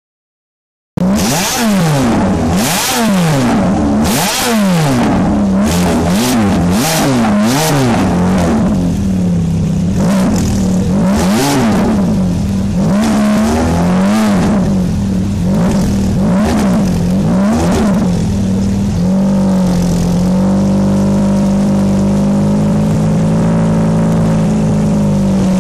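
Ferrari F430's 4.3-litre V8 breathing through a very loud Capristo aftermarket exhaust, revved hard again and again in quick blips that rise and drop sharply. It then settles into a steady idle for the last several seconds. A moment of silence comes before the first rev.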